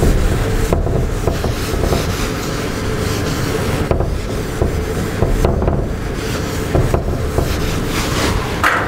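A whiteboard being wiped clean, an eraser rubbing across its surface in continuous strokes.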